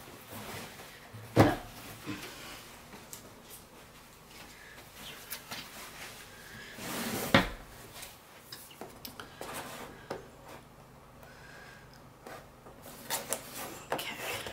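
Scissors cutting through the strong label sealing a cardboard ink box, with light handling and clicking of the box and scissors. Two sharper knocks stand out, one about a second and a half in and one about halfway through.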